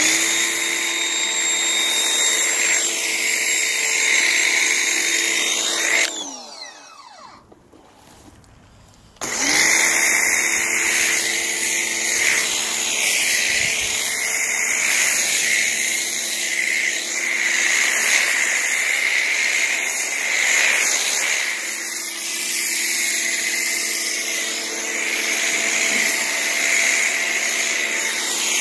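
Pressure washer motor running with the hiss of a foam cannon spraying soap foam. About six seconds in the motor winds down and stops, and about three seconds later it starts again abruptly and runs on.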